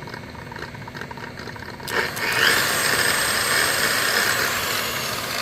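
Makita 9237CX3 7-inch variable-speed polisher running slowly, then speeding up about two seconds in and running on steadily and louder. Its gear head is loud, which the owner first fears is a bearing going bad and later traces to gears with almost no grease on them.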